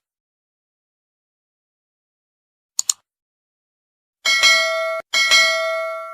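A quick double click about three seconds in, then a bright bell-like chime sounded twice, a second apart, the second ringing on and fading.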